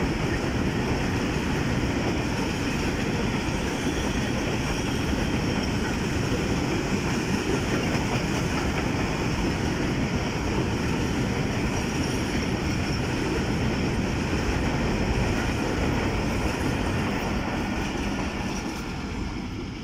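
A long freight train of covered goods wagons running past fast, a steady loud rumble and clatter of wheels on the rails. It fades near the end as the brake van at the tail goes by.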